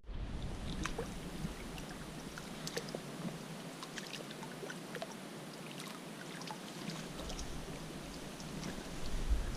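River water running steadily, with many small splashes and trickles.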